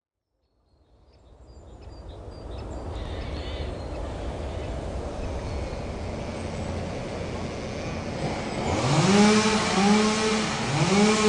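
A steady low rumble fades in, then about nine seconds in a Husqvarna chainsaw revs up quickly to a high steady pitch, drops off briefly and revs up again near the end.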